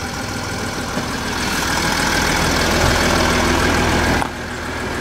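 A car engine running at idle, a steady low hum under a broad hiss that drops away suddenly about four seconds in.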